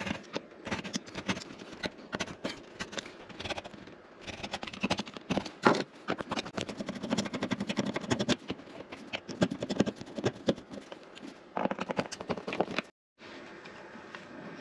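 Hand tools working on a wall thermostat's mounting plate: a utility knife blade scratching along the plate's edge to score the paint, then a screwdriver turning out the plate's screws, a dense run of scrapes and clicks. The sound breaks off for a moment near the end.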